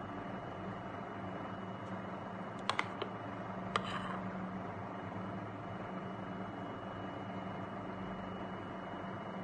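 A steady low hum with a few light clicks and taps: a quick pair a little under three seconds in and one more about a second later, from the aluminium foil tray of chocolate-sauced cake being handled.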